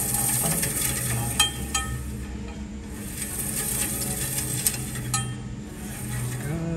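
Band resaw blade being pulled around by hand through its guides: a hissing scrape of the steel blade sliding past the guide block, in two stretches with a pause between, and a few light clicks. It is a check that the blade runs a full turn without touching and spinning the guide roller.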